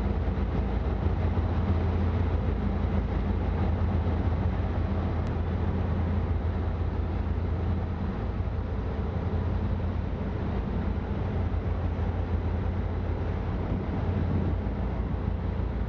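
Jet boat engine idling with a steady low hum before the boat sets off.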